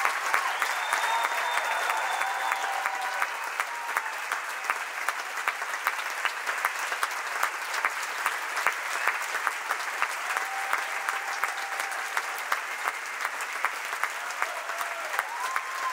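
Theatre audience applauding steadily, a dense patter of many hands clapping, with a few voices calling out over it now and then.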